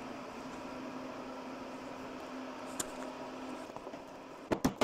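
Steady low machine hum, which fades out a little before the end, followed by a few sharp knocks near the end.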